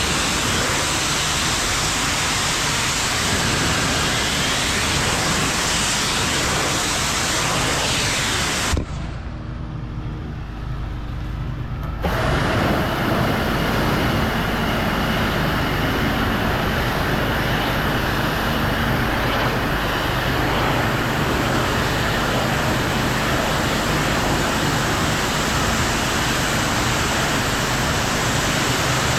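Pressure washer spraying water at high pressure, a steady loud hiss. The spray breaks off suddenly about nine seconds in and comes back about three seconds later.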